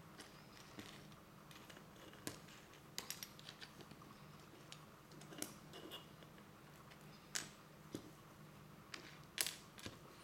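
Small plastic model-kit parts clicking and tapping as they are picked up and set down on a cutting mat: about ten scattered light clicks, the sharpest near the end, over a faint low hum.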